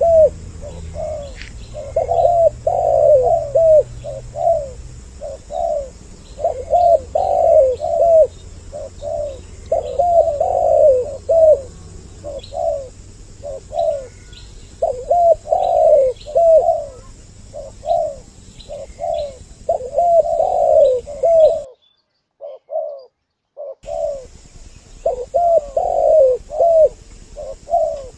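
Spotted doves (tekukur) giving their repeated cooing calls, two birds' phrases overlapping in a lure recording meant to draw males and females in. The sound drops out completely for about two seconds near the end, then the cooing resumes.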